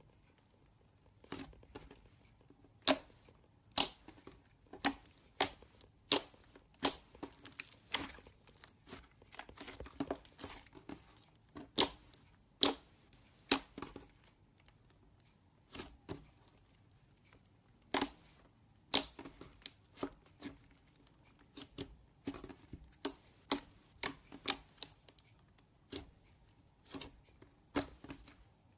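Green slime being squeezed and worked by hand, making sharp, irregular clicks and pops, sometimes several close together.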